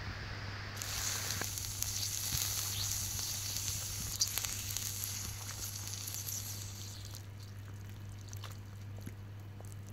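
Burning, melted toy on a hot brick sizzling and hissing as water is poured over it to put out the flames. The hiss starts about a second in and dies down near the end.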